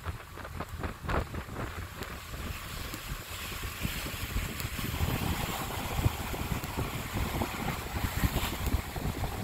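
Wind buffeting the microphone: low rumbling gusts and a rushing hiss that gets stronger about three seconds in, with a few short knocks near the start.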